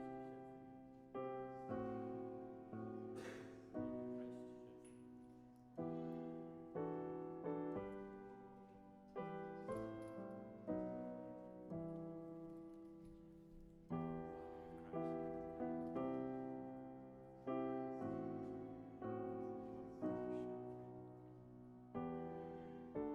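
Solo piano playing slow chords, each struck and left to fade before the next.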